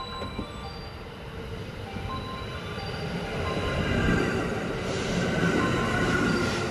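JR West Thunderbird limited express electric train running in along the platform: the rush and rumble of its wheels on the rails builds over the first few seconds and is loudest from about four seconds in, with a whine from the motors and wheels.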